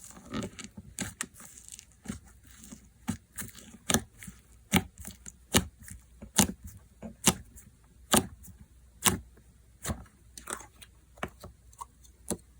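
Slime being pressed and played with by hand, giving a steady run of sharp clicking pops about once a second, loudest in the middle.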